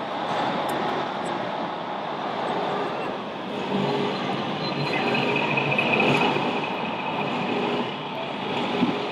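Scale RC truck sound module playing a simulated diesel truck engine running, over the steady murmur of a busy exhibition hall.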